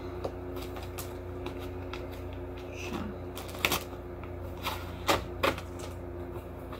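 A cardboard product card with a fabric accessory attached being handled and rustled, with scattered sharp clicks and snaps, the loudest in the second half, over a steady low hum.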